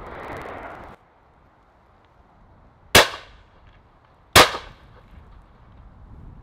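Two shots from a 12-bore shotgun, about a second and a half apart, each trailing off in a short echo.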